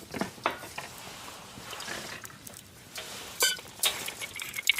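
A few separate sharp knocks and light metallic clinks, as of small hard objects being handled, over a faint steady background.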